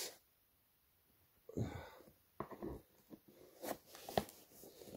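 Faint handling of a cardboard shipping box and scissors as packing tape is cut: a short sound about a second and a half in, then a few scattered soft clicks and knocks.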